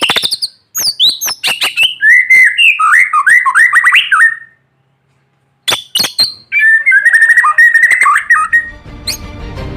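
White-rumped shama singing in sharp, rapid-fire bursts: piercing clicks and fast rattling phrases, with a second-long pause midway. Background music fades in near the end.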